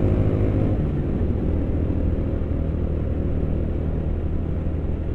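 Engine of a moving vehicle droning steadily, heard from inside the cab. Its pitch drops slightly about a second in, as if easing off the throttle.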